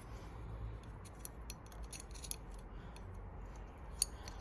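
Light metallic clicks of a chain wear checker being fitted against bicycle chain links, a few sharp ticks spread over several seconds. The gauge is measuring chain stretch, and the chain is worn.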